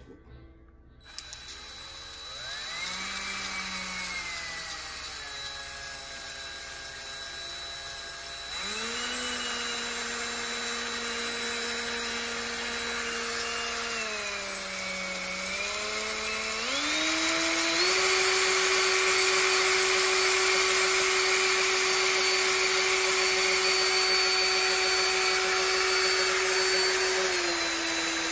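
Cordless drill spinning the crankshaft of a 3D-printed PLA V8 engine model at high speed, a whine that changes pitch with the drill's speed. It starts about two seconds in and steps up in speed after a few seconds more. It dips briefly past the halfway point, then runs fastest and steady, easing off slightly near the end.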